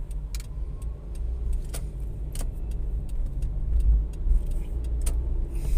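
Car driving in town traffic, heard from inside the cabin: a steady low engine and road rumble with scattered sharp clicks and rattles.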